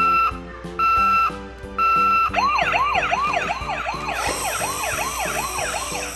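Electronic siren of a toy ambulance: three steady one-pitch beeps about a second apart, then a fast warbling siren that sweeps up and down about three times a second.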